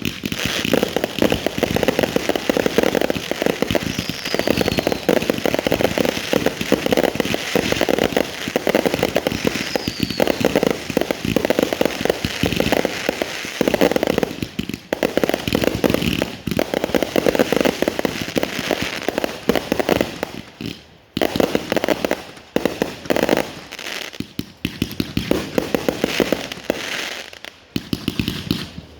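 Aerial fireworks cakes firing a dense, rapid barrage of bangs and crackle, like a finale. The firing drops off briefly three times, about halfway through, around two-thirds of the way in and near the end.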